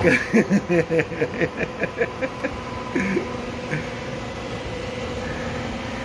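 A man laughing in quick pulses for about two and a half seconds, with one more short laugh about three seconds in, over the steady hum of a robot vacuum cleaner running.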